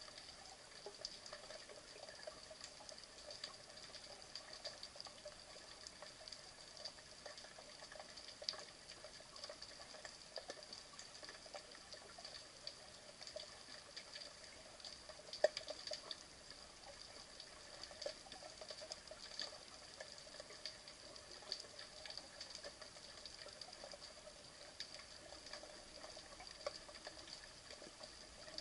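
Faint underwater ambience picked up by the submerged camera: a steady crackle of small scattered clicks and ticks over a faint hiss, with one sharper click about fifteen seconds in.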